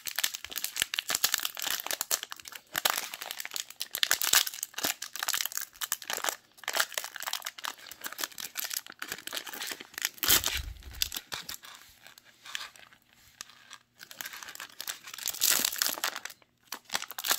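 Plastic wrapper of a trading-card pack crinkling and tearing as it is pulled open by hand, in irregular crackles that ease off for a while and pick up again near the end. A dull thump about ten seconds in.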